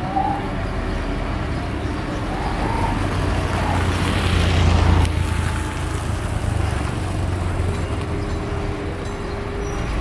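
Heavy diesel engines of loaded dump trucks running as they crawl along a dirt haul road. The low rumble swells to its loudest about halfway through, then eases off.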